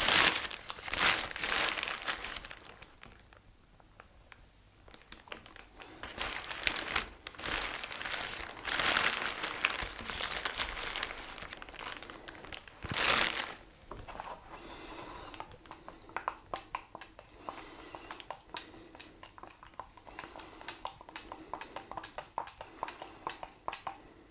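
Crinkling and rustling in loose bursts as a paper shop towel is handled in gloved hands. From about halfway, a stick stirs neon blue paint in a plastic measuring cup, with quick light clicks against the cup.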